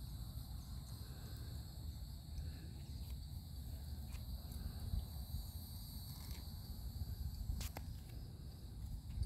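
Insects singing in a steady high-pitched chorus of several unbroken tones, over a low rumble, with a single sharp click about three quarters of the way through.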